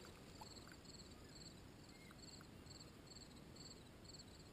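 Faint crickets chirping, a regular high chirp repeating about twice a second, over near silence.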